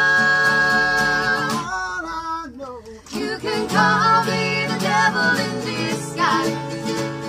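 Live acoustic band music: voices in harmony hold a long 'oh' over acoustic guitars and mandolin, breaking off after a couple of seconds. After a brief softer dip the strummed guitars and mandolin come back in full with the singing.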